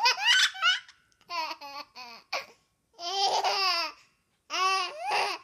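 A young child laughing in several high-pitched bursts with short pauses between them. The longest burst comes about halfway through.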